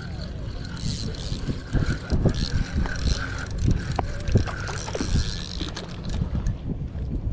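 Wind buffeting the microphone in uneven gusts, with a few short knocks and clicks scattered through it.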